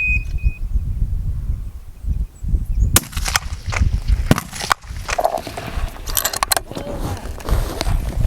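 Several sharp rifle shots on a fullbore target range: the first and loudest about three seconds in, more around four and a half seconds and a cluster near six seconds, over a steady low wind rumble on the microphone.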